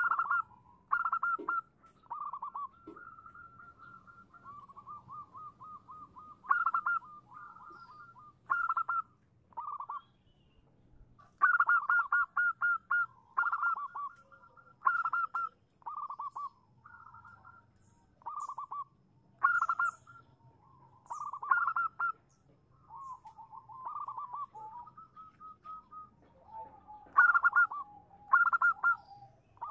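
Zebra dove (perkutut) cooing: a long run of short staccato trilled coo phrases, loud ones every second or two with softer rolling trills between. It is the call of a female zebra dove, used as a lure to make a male answer.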